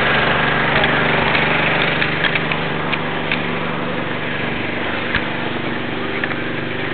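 A steady motor hum, with a few faint clicks scattered through it.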